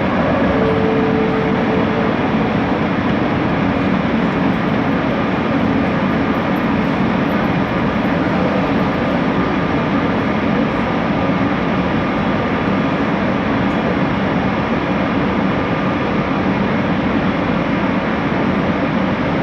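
Bombardier Innovia ART 200 metro train running at speed, heard from inside the car: a steady rumble of running gear and motor noise. A short steady hum shows briefly near the start.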